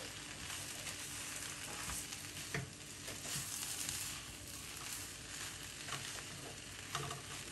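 Shredded chicken and potato samosa filling sizzling in a nonstick wok while a spatula stirs and scrapes through it, with a few light knocks. The filling is being cooked through on the heat.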